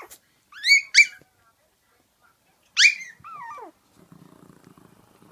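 Chihuahua puppies playing: two sharp, high-pitched yips about a second in, a third near three seconds that trails off into a falling whine, then a low, rattling play-growl from about four seconds on.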